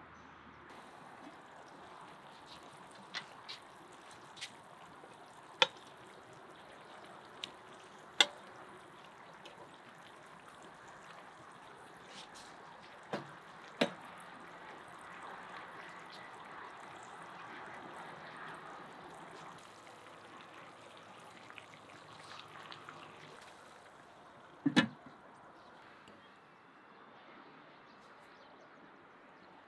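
Food cooking in a large wok: a steady hiss of the stew sizzling and simmering, with scattered sharp knocks of a utensil against the pan every few seconds. The loudest is a double knock about 25 seconds in.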